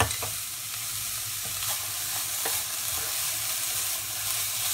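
Shredded carrots and beans sizzling in oil in a nonstick pan while a wooden spatula stirs them. A steady hiss runs throughout, with a few light taps and scrapes of the spatula against the pan.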